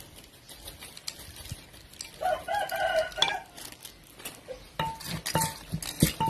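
A rooster crows once, about two seconds in. Near the end a wooden pestle starts pounding in a clay mortar, about two strokes a second, each a sharp knock with a short ring.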